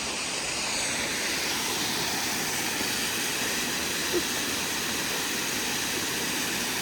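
Waterfall rushing with a steady, even roar, with one brief small tap about four seconds in.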